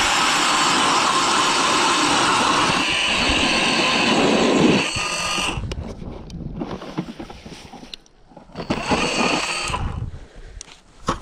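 ION electric ice auger drilling into lake ice: a steady motor whine with the grinding of the blades cutting, which stops about five and a half seconds in. The auger runs again briefly about nine seconds in.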